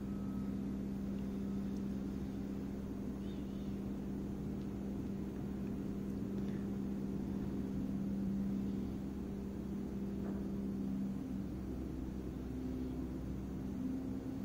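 A steady low machine hum with no change.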